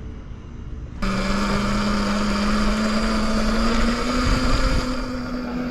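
Electric bike's motor whining with wind rushing over the microphone, starting abruptly about a second in; the whine rises slowly in pitch as the bike picks up speed.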